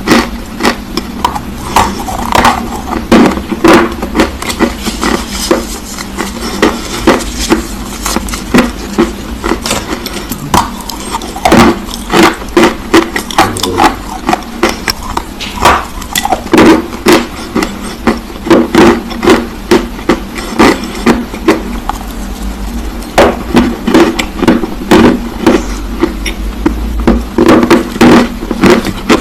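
Close-miked crunching of dry black clay being bitten and chewed: a rapid, irregular run of sharp crunches and snaps.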